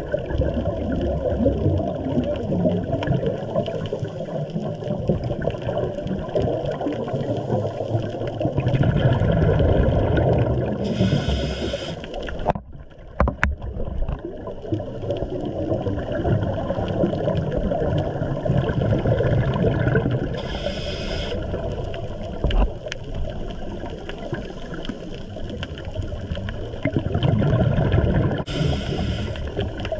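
Scuba regulator breathing heard underwater through a camera housing. A short hiss of inhalation and a louder burst of exhaled bubbles come back about every eight to nine seconds, over a constant low water noise.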